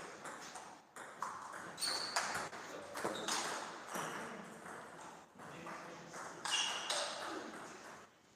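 Table tennis rally: the ball clicking off the bats and the table again and again, some hits leaving a short high ringing ping.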